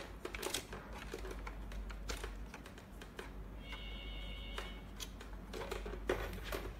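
Small scattered clicks and taps of plastic and tubing as the air tubes inside an electronic blood pressure monitor are worked off their connectors with fingers and a screwdriver. A brief high tone sounds a little past the middle.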